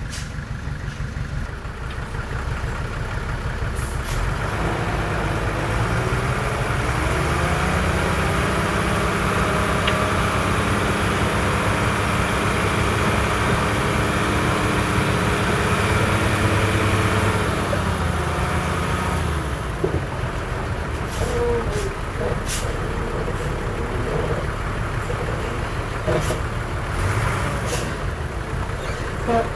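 Heavy diesel engine of earthmoving machinery revving up under load, running hard for about ten seconds, then easing back toward idle. Several short sharp clanks or hisses follow near the end.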